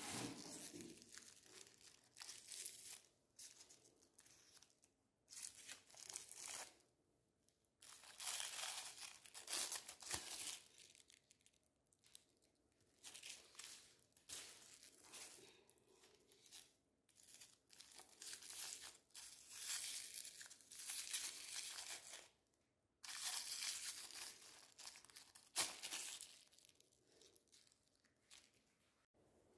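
Crinkly wrapper packaging being handled and torn open in repeated bursts of one to two seconds, with short pauses between.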